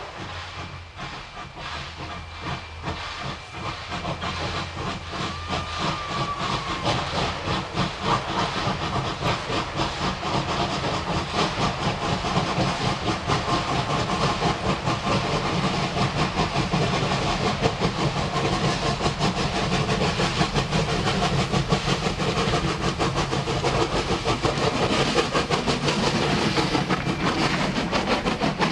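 Steam locomotive working, its rapid exhaust beats and hissing steam growing steadily louder as it draws nearer. A short, faint whistle tone sounds about six seconds in.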